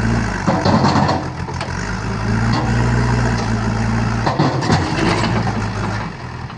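Heavy machine's diesel engine running steadily at a low, even speed, with a few short knocks.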